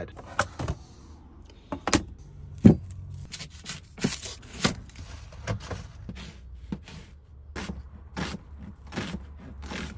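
Kitchen knife chopping an onion on a plastic chopping board: a run of knife knocks on the board, a few louder ones in the first three seconds, then quicker chopping at about two or three a second, over a low steady hum.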